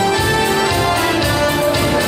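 Instrumental passage of a march song: held melody notes over a steady, regular beat.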